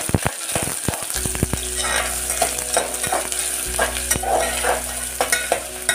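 Chopped onion frying and sizzling in hot oil in a metal pot while a spatula stirs it, with frequent short scrapes and knocks of the spatula against the pot.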